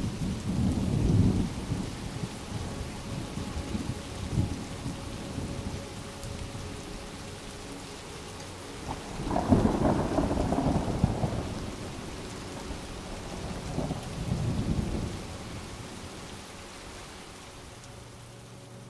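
Thunderstorm with steady heavy rain and rolling thunder: a rumble right at the start, the loudest peal about nine seconds in, and another around fourteen seconds in.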